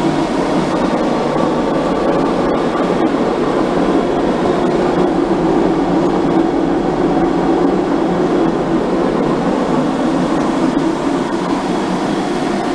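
Ohmiya OC-18 centerless grinder running steadily, its 15 hp motor driving the grinding wheel and regulating wheel. It makes a loud, even machine hum with no breaks.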